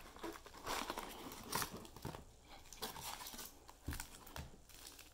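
Faint, irregular crinkling and rustling of sealed trading-card packs being handled and pulled out of a cardboard hobby box, with a few sharper taps and crackles.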